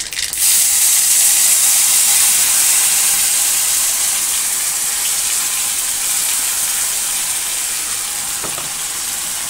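Wet ground masala with tomato poured into hot oil in a kadai: a sudden loud sizzle about half a second in, easing off gradually as the paste fries.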